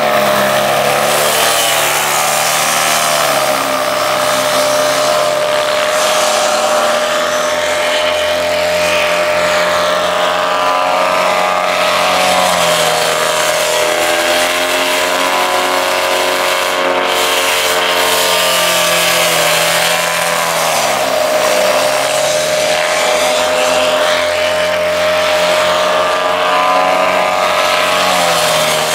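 Paramotor engines and propellers running at high throttle, with the pitch dropping each time a low-flying machine passes close by, about three times, over the steady drone of others in the air.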